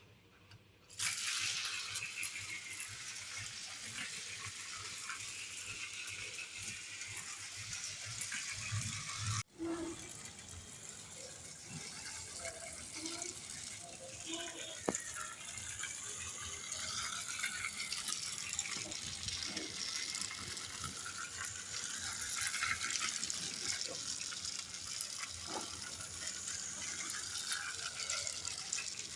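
Battery-operated Thomas the Tank Engine toy train running on its plastic circular track: a steady mechanical rattle from its small motor and wheels. It starts about a second in and breaks off briefly about nine seconds in.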